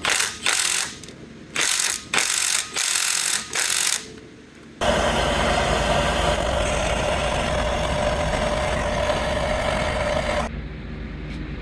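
Power wrench working the brake caliper bolts of a Dodge Ram 2500 hub: several short bursts, then a steady run of about six seconds that stops near the end.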